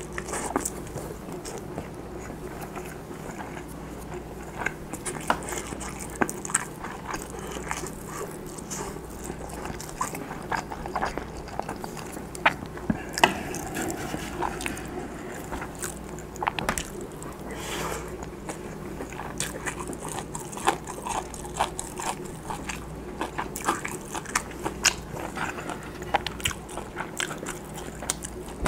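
Close-miked chewing of fried Spam and rice: wet mouth clicks and smacks at an irregular pace. There are light clicks of a wooden spoon and chopsticks against a wooden bowl, over a steady low hum.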